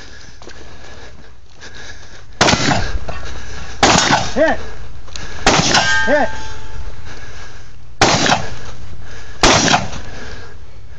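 Five shotgun shots, a second or two apart, with steel targets clanging and ringing after several of them.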